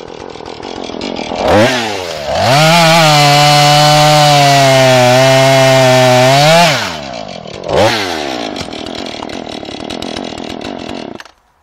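Two-stroke chainsaw idling, revved briefly, then held at full throttle for about four seconds with its pitch sagging slightly as it cuts wood. It drops back to idle, revs once more and is shut off near the end.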